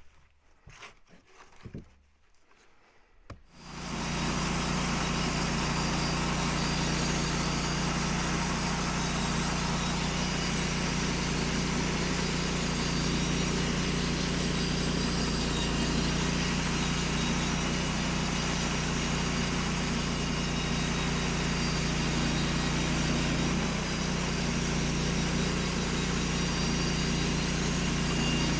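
Sawmill engine, after a few knocks, starting up about three and a half seconds in and then running at a steady, even speed.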